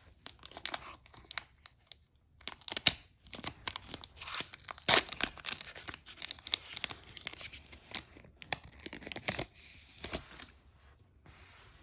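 Foil wrapper of a Pokémon XY Roaring Skies booster pack being torn open and crinkled: a run of sharp rips and crackles, with a brief pause about two seconds in.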